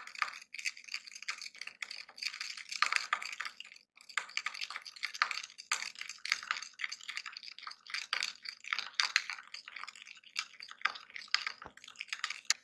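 Metal spoon beating cream with sugar in a bowl: rapid clicking and scraping strokes against the bowl, with a brief pause about four seconds in.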